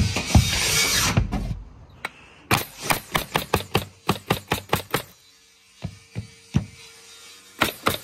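A power tool running cuts off about a second and a half in. It is followed by a quick run of about a dozen sharp knocks, four or five a second, as nails are driven into deck lumber, then a few scattered knocks.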